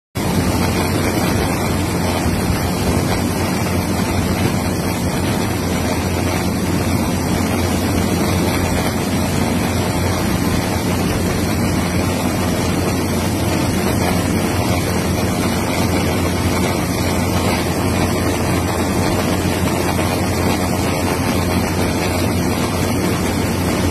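Steady, loud rushing of wind buffeting the microphone, with no pauses or changes.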